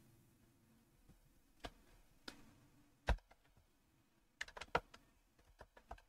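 Faint computer keyboard keystrokes: a few scattered key presses, then a quick run of typing in the second half.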